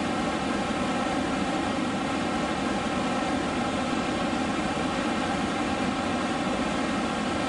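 Steady, even rush of a large waterfall.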